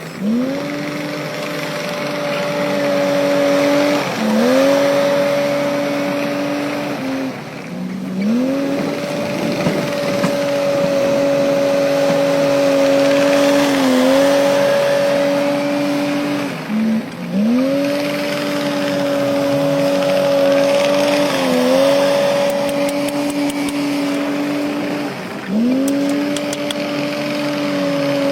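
Heavy diesel engine of earthmoving machinery running hard, its note dropping briefly under load and climbing back up again and again, about every few seconds.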